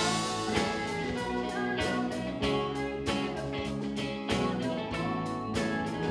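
Live rock band playing: electric guitars, bass guitar and drum kit. The full band comes in loudly at the start after a quieter passage, with sustained guitar chords over regular drum and cymbal hits.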